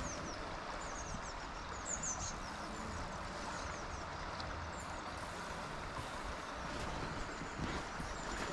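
Steady rush of a broad river flowing, with a small bird's short, high, falling chirps in the first few seconds.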